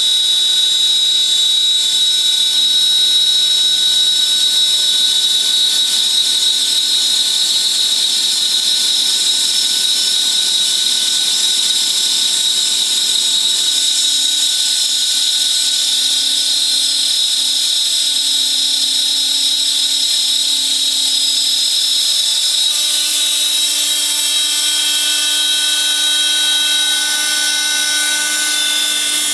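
A CNC glass slotting and milling machine running: its spindle gives a steady high-pitched whine with several constant tones. A lower hum drops away about halfway through and the mix of tones shifts a little later on.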